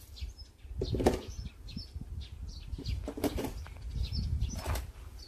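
Outdoor yard ambience: small birds chirping now and then in the background over a low wind rumble on the microphone, with three brief scuffs about one, three and four and a half seconds in.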